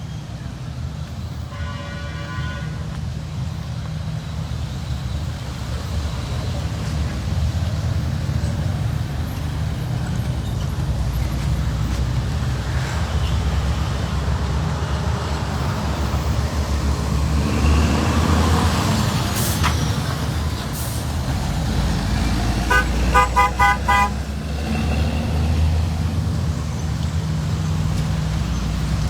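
Road traffic running steadily, with a short car-horn toot about two seconds in and a burst of several quick horn toots near the end, the loudest sounds.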